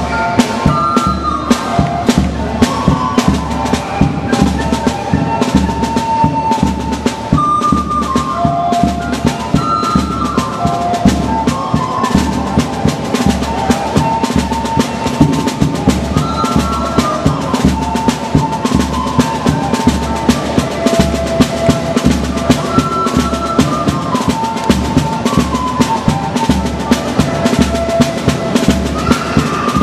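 Group of recorders playing a melody together, backed by a band with steady drumming; the drum strikes are the loudest part.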